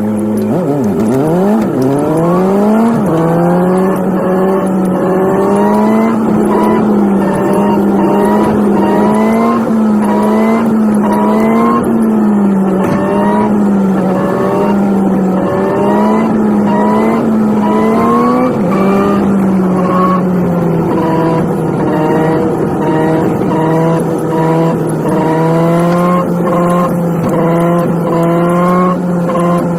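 Nissan 180SX engine sound played back at high speed. The pitch climbs and drops back over and over, about once a second, as the car accelerates and changes gear.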